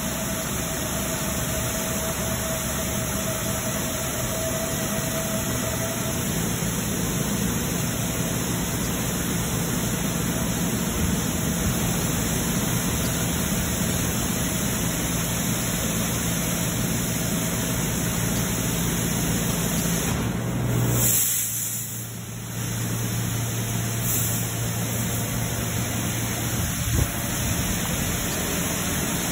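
Mark VII soft-touch automatic car wash running: water spraying over a car in the bay, with a steady machine hum that drops in pitch about six seconds in and again after a short dip about three-quarters of the way through.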